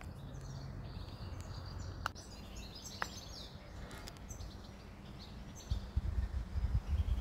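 Birds chirping in scattered short calls over a steady low outdoor background hum, with irregular low bumps of wind or handling on the microphone starting near the end.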